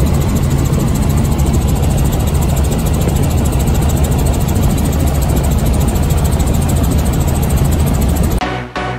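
Helicopter in flight: a loud, steady engine and rotor drone. About eight and a half seconds in it cuts off suddenly and electronic music with a regular beat begins.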